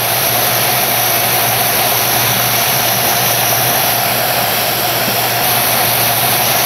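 Four-engine LC-130 Hercules turboprops running steadily on the ground: a loud, even rush of noise with a constant hum and a steady droning tone.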